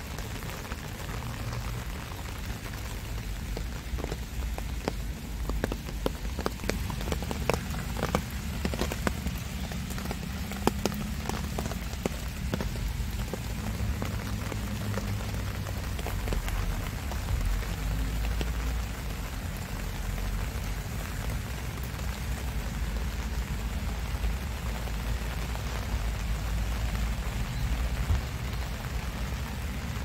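Steady rain falling on garden plants, with a run of sharper drip ticks between about 4 and 13 seconds in. A low rumble runs underneath.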